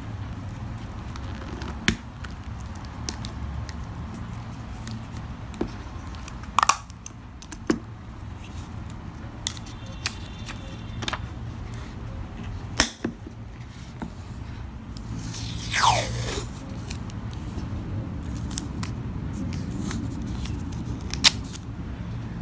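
Close-up handling of a mini 3-ring binder journal: scattered sharp clicks and taps from its clear plastic cover, snap button and rings, and paper rustling as grid sheets are taken out. One longer falling swish comes about two-thirds of the way through, over a steady low hum.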